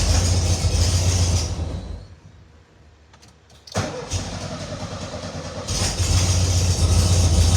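1972 Volkswagen Beetle's starter cranking the engine in two tries, each starting suddenly. The first cuts out about two seconds in, and the second kicks in nearly four seconds in and grows louder towards the end. The starter is now fed through a newly installed hard start relay, fitted to cure the car's hard starting.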